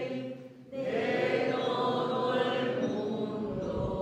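A congregation singing the responsorial psalm refrain together, coming in about a second in after a brief pause; many voices blend into one blurred sung line.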